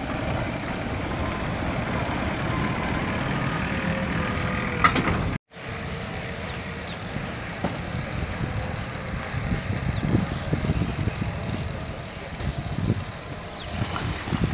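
Vintage electric rack locomotive (Wengernalpbahn no. 53, built 1909) moving off and running along the cog track: a low, steady running noise with faint steady tones above it, and irregular low knocks as it draws away. The sound drops out briefly about five seconds in.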